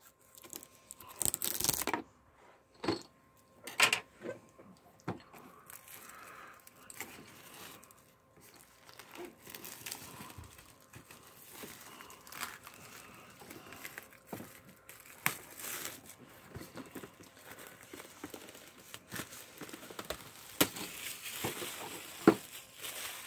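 Clear plastic shrink-wrap being torn and peeled off a cardboard game box by hand: irregular crinkling and crackling, with a louder rip now and then.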